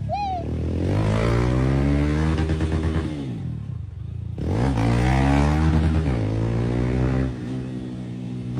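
Motorcycle engine revved up and down in long swells, the throttle worked to mimic a wedding tune. The revs climb, dip back near idle about midway, climb again, then settle to a lower steady run near the end.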